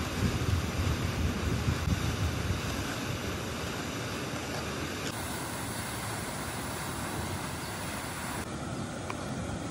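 Steady rushing of a waterfall, with wind buffeting the microphone as a low rumble in the first couple of seconds. A few faint clicks near the end.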